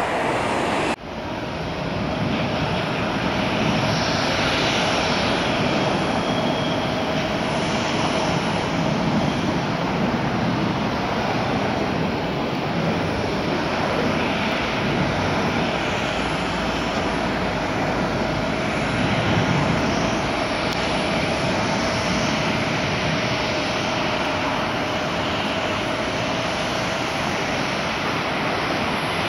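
Jet airliner engines rumbling steadily, with a thin steady whine running through the noise. The sound breaks off sharply about a second in and comes straight back.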